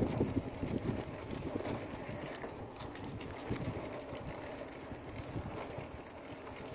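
Bicycle rolling over a rough dirt road: tyre crunch and rattling of the bike over the ruts, with wind on the microphone.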